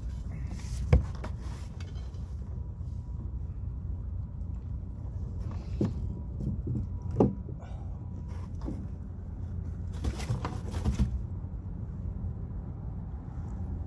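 Knocks and bumps on a kayak over a steady low rumble: a sharp knock about a second in, two more near six and seven seconds, and a cluster of knocks around ten to eleven seconds.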